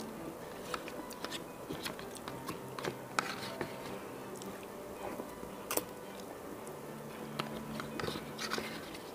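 Fork scraping and clicking against a plastic takeout bowl while food is eaten from it, with chewing. There are many short, sharp clicks at irregular intervals, a cluster of them near the end.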